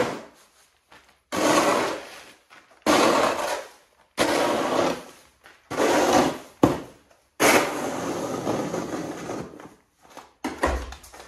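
Snow shovel scraping across a snowy driveway in repeated strokes, about five pushes each starting sharply and fading out, the last one longer.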